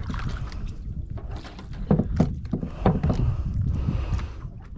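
Water splashing and sloshing against the hull of a small outrigger boat, with a few sharper hits about two to three seconds in.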